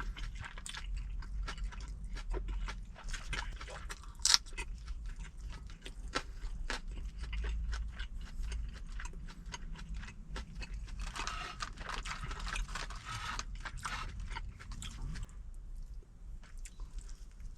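Close-up eating sounds: chewing and crunching a mouthful of fresh napa cabbage kimchi and boiled pork, with many small wet clicks and one sharper click about four seconds in. A low steady hum runs underneath.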